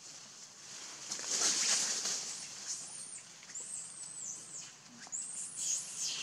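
Infant pig-tailed macaque crying with a run of high-pitched, arching squeaks, starting about three seconds in, after a harsher noisy burst about a second in.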